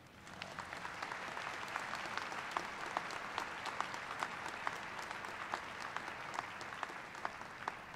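Audience applauding: many hands clapping in a dense patter, with scattered louder single claps standing out. It swells within the first second and begins to die down near the end.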